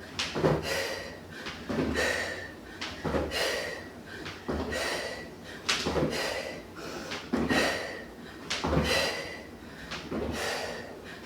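A person breathing hard and gasping while doing lateral jumps, with the thud of feet landing on the floor, repeating about every second and a half.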